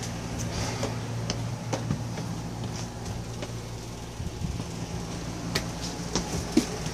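A steady low mechanical hum, with scattered small clicks and knocks over it.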